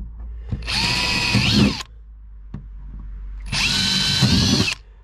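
Power drill with a 6 mm metal bit drilling screw holes for a bilge pump's brackets, in two bursts of about a second each, its whine dipping in pitch as the bit bites.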